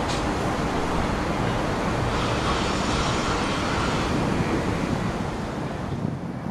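City ambience: a steady wash of distant traffic noise with wind, a little brighter for a couple of seconds in the middle.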